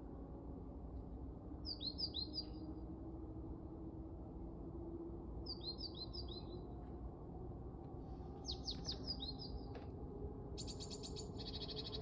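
Small songbird singing a short phrase of high, quickly descending notes, three times a few seconds apart, with a different rapid trilling call near the end. A steady low rumble sits underneath.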